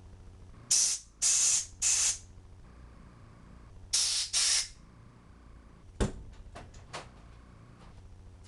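Five short hissing spray bursts, three in quick succession then two more a couple of seconds later, aimed at the tiny holes of a Holley carburetor's accelerator pump squirter to clear them. About six seconds in comes a sharp click, followed by a few lighter clicks.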